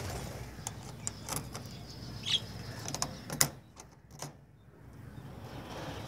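Budgerigars giving a few short, high chirps, with brief sharp flutters as birds fly down to feed.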